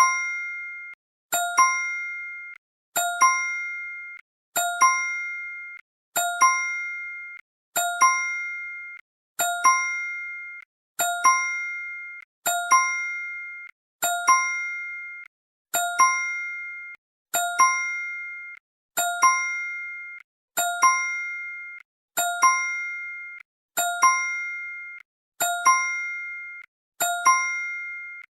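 Phone message notification tone: a short bright chime, struck and fading away, repeated in a loop about every second and a half.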